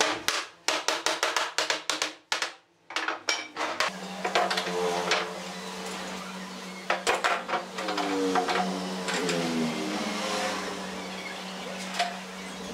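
A wooden block hammered against a pine frame to drive its joints home, a quick run of sharp knocks over the first four seconds and a few more later. After that a steady low hum runs underneath, with short squeaks that slide in pitch.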